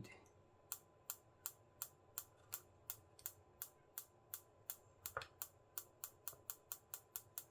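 Party strobe flash firing, each flash of its flash tube giving a sharp tick, in a regular train of about three ticks a second that quickens to about five a second after about five seconds as the speed knob is turned up.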